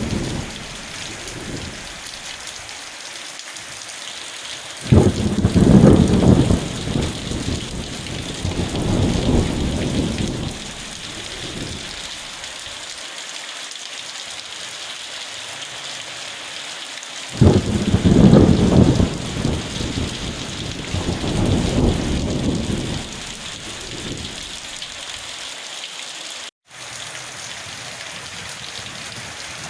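Steady rain falling, with two rolls of thunder that break in suddenly about 5 seconds in and again about 17 seconds in, each rumbling for several seconds before fading. The sound cuts out for an instant near the end.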